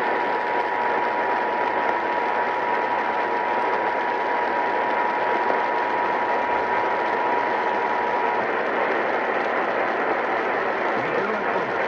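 Emergency alert attention tone: a steady, high pitch held for about eight seconds and then cut off, over a constant hiss of radio static.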